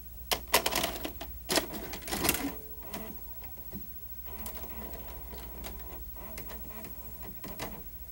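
Irregular mechanical clicking and clatter, loudest in the first two and a half seconds, then fainter ticking over a steady low hum.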